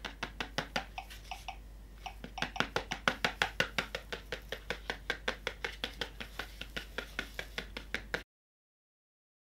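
Hatchibabies toy egg pecking at its plastic shell from inside: a rapid, even run of sharp taps, about five or six a second, with a short pause about a second in, cutting off suddenly near the end.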